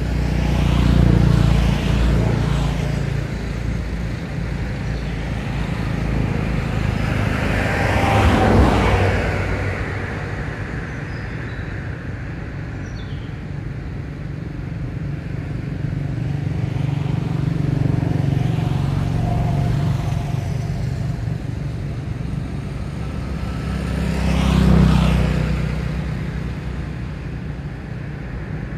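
Road traffic passing nearby: a steady low engine hum, with vehicles swelling up and fading away as they go by, loudest near the start, about a third of the way in and near the end.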